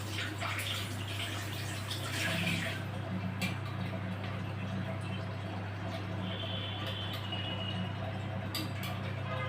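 Water running from a bathroom tap for about three seconds and then stopping, followed by a few light clicks of the tap's parts being handled, over a steady low hum.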